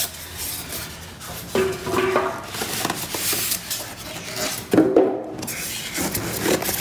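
Polystyrene foam packing blocks rubbing and squeaking against the cardboard of a TV box as they are pulled out by hand, with rustling and handling knocks. Short squeaks come about one and a half seconds in and again near five seconds, the second the loudest.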